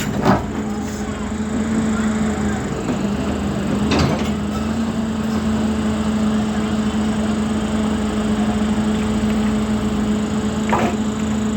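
Volvo excavator's diesel engine and hydraulics running steadily with a constant hum, broken by a few short knocks: one just after the start, one about four seconds in and one near the end.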